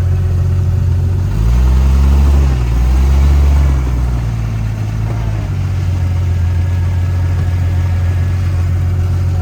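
Off-road vehicle's engine running at low speed, with two brief throttle pushes about a second and a half and three seconds in, rising and falling in pitch, then settling back to a steady low drone.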